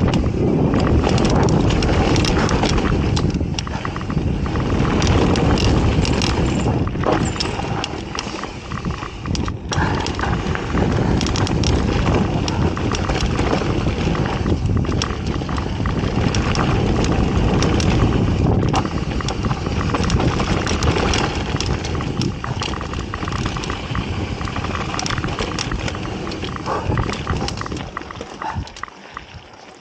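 Mountain bike riding fast down a dirt trail: wind rushing over the camera microphone and tyres rolling on dirt, with the bike rattling and clacking over bumps. It gets somewhat quieter near the end.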